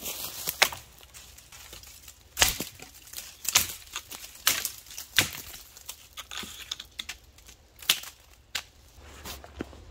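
Dead wood snapping and crackling as a dead leaning sapling is pulled down through the branches: a string of sharp cracks with rustling between them, the loudest about two and a half seconds in.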